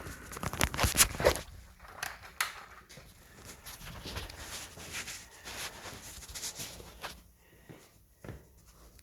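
Footsteps and handling noise: a cluster of sharp knocks and clicks in the first second or so, another about two and a half seconds in, then rustling, with a couple of faint knocks near the end.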